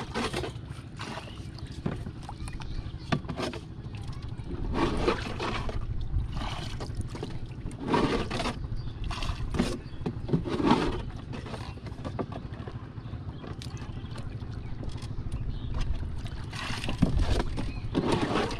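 Sounds aboard a small wooden rowing boat on open water: a steady low rumble, broken every few seconds by short, louder noises.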